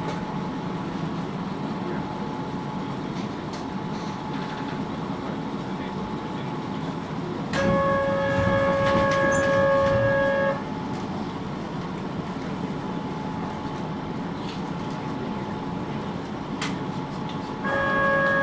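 Inside the cabin of a Keihan 800 series commuter train: steady running and cabin noise with faint passenger voices, broken by a loud, steady, single-pitched electronic tone that switches on about halfway through, lasts about three seconds, stops abruptly, and starts again near the end.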